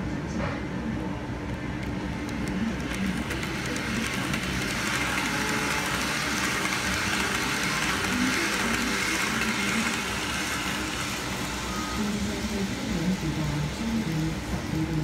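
Model Shinkansen E2 train running along its track, a steady whirring rumble of motor and wheels on the rails that grows louder as the cars pass close by and eases off again after about ten seconds.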